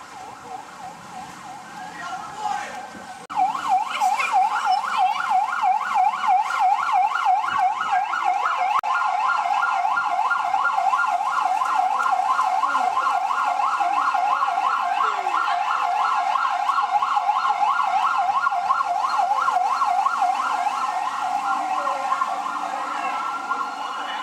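Emergency vehicle siren in a fast yelp, sweeping up and down about four times a second. It cuts in suddenly about three seconds in and fades a little near the end.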